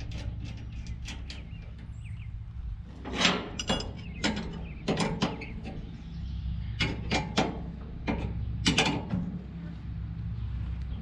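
Wrench and steel parts of an Oliver 60 twine baler's drive mechanism clinking and clanking as bolts are worked by hand: clusters of short metallic clicks starting about three seconds in. A steady low hum runs underneath.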